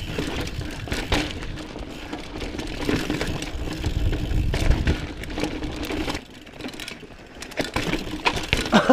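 Mountain bike rolling fast down a rocky trail, heard from the rider's camera: tyres rumbling and rattling over rock with wind buffeting the microphone and a steady mechanical buzz from the bike. About six seconds in the buzz stops and the rumble drops away, leaving lighter knocks and rattles.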